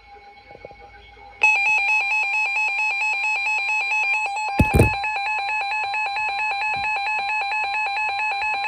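NOAA Weather Radio alert tone: a loud electronic alarm tone starts abruptly about a second and a half in, warbling at first and then holding steady, signalling that a new warning is about to be read. A short knock comes about halfway through.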